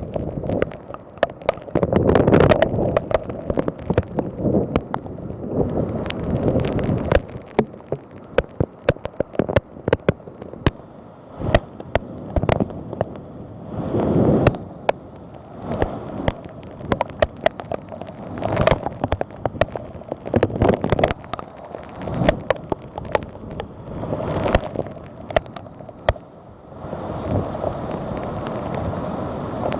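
Thunderstorm: a steady wash of heavy rain broken by many sharp cracks and pops, with repeated low rumbling surges a second or two long.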